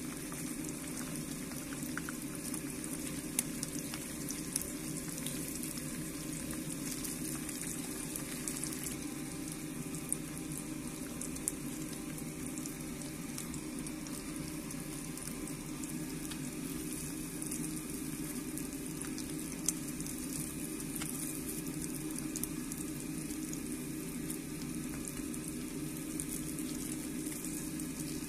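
Mackerel frying in a pan of bubbling oil: a steady sizzle with fine crackling and a few sharp pops.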